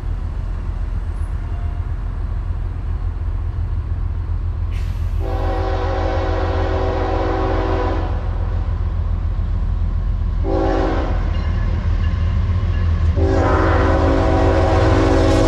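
Air horn of an approaching Norfolk Southern freight led by a GE ES44AC locomotive, sounding the grade-crossing warning: a long blast about five seconds in, a short one near ten seconds, then another long blast from about thirteen seconds. Under the horn is the train's steady low diesel rumble, growing louder as it nears.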